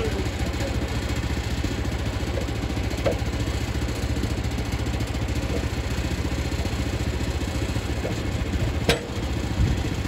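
Small gasoline engine of a Woodland Mills portable band sawmill idling steadily, with a sharp knock about nine seconds in and a fainter one about three seconds in.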